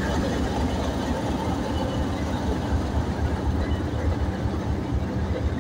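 Freight train of open wagons rolling past on the new East Coast Rail Link track: a steady low rumble of wheels and running gear.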